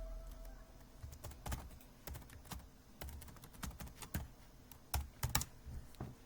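Typing on an HHKB Type-S keyboard with silenced Topre switches: irregular key presses, with a few louder strokes about five seconds in.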